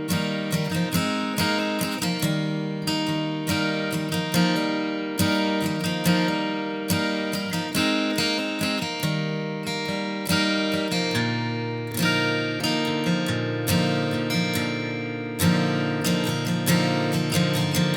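Acoustic guitar music: plucked and strummed chords at a steady pace.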